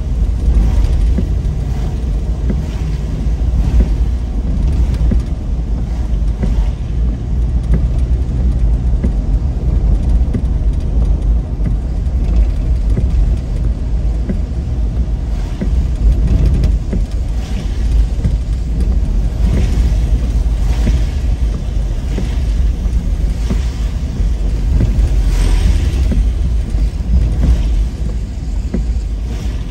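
Car driving: a steady low rumble of engine and road noise, with a higher hiss that swells briefly twice, about twenty and twenty-five seconds in.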